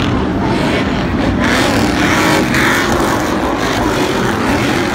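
Several Stadium Super Truck race-truck engines running hard as the trucks race around a dirt track, a loud continuous engine noise that swells about a second and a half in.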